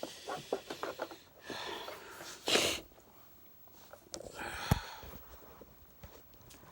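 Cleaning the plastic body of a Hoover upright vacuum by hand: cloth rubbing and wiping, with a short loud hiss about two and a half seconds in, another hissy stretch later and a sharp click near the end of it.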